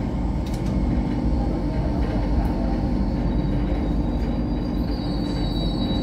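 MTR Light Rail vehicle running on the track with a steady rumble. About three seconds in, a thin high wheel squeal joins as it pulls into a stop.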